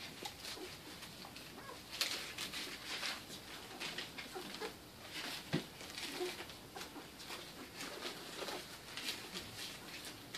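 Newborn Giant Schnauzer puppies making small squeaks and grunts as they nurse, with scratchy rustling of the newspaper bedding in the whelping box.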